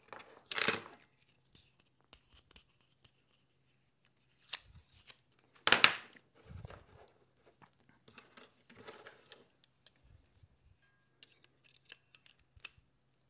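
Workbench handling noise: blue painter's tape being peeled off small mitered wood pieces, with light clicks and knocks from metal spring-clamp pliers and wood being set down. A few short bursts, the loudest about six seconds in, then scattered small clicks near the end.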